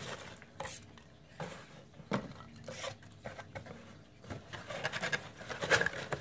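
Hands rummaging through foam packing peanuts in a cardboard shipping box: scattered rustles, light knocks and scrapes of foam and cardboard, busier about two thirds of the way through, with paper rustling near the end.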